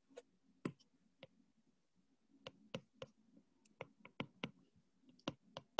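About a dozen faint, irregular clicks and taps of handwriting on an iPad's glass touchscreen.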